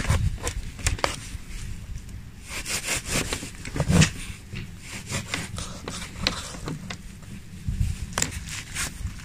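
Kitchen knife cutting through a raw guinea fowl's backbone and ribs: irregular crunching and crackling of bone and skin, with the loudest crunch about four seconds in.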